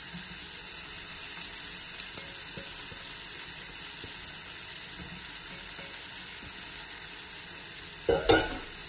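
Sliced onions, red pepper and freshly added grated carrot sizzling steadily in a stainless steel wok. Two sharp knocks come near the end.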